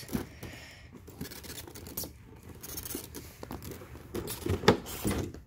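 Cardboard model train box and its plastic tray being handled and the lid worked open: scattered scrapes and light knocks, the loudest few about four to five seconds in.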